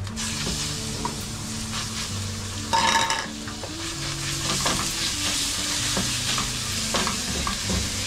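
Ground meat sizzling as it is fried and stirred in a pan for spaghetti sauce; the sizzle starts as the meat goes in. A brief, louder ringing sound comes about three seconds in.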